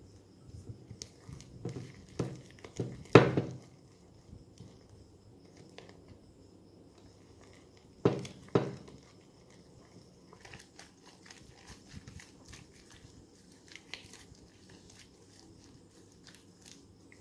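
Slime being handled in a plastic ziplock bag: crinkling plastic with a run of sharp clicks and pops, the loudest about three seconds in and a pair about eight seconds in, then fainter scattered clicking.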